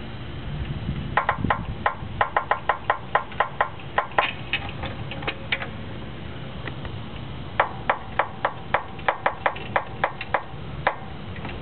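Upper strut and spring area of a 2000 Honda Civic's suspension creaking as the car is slowly jacked up: a quick run of sharp clicks, about four a second, that pauses for about two seconds midway and then comes again. The suspension has KYB GR2 struts, Eibach Sportline springs and a Skunk2 camber kit, and the owner is unsure whether the springs or a camber-kit bushing is at fault.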